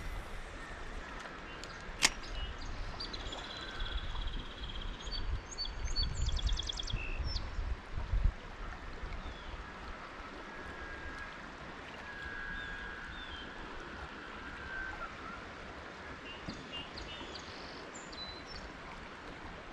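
Songbirds singing and calling over a steady outdoor hiss, with gusts of wind rumbling on the microphone in the first several seconds. A single sharp click about two seconds in.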